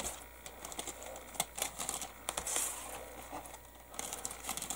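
Small clear plastic bag of resin kit parts being handled and pressed between the fingers: scattered soft crinkles and little clicks.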